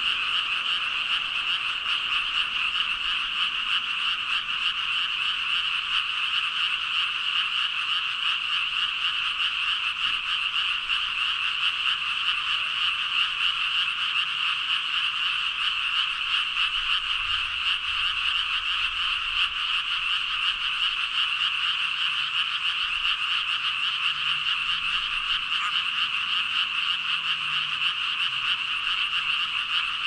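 A large chorus of frogs calling all at once from a flooded rice paddy, a dense, steady din of overlapping croaks with no break.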